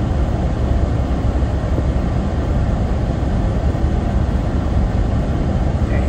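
Steady road and engine noise inside the cabin of a car moving at highway speed: a constant low rumble.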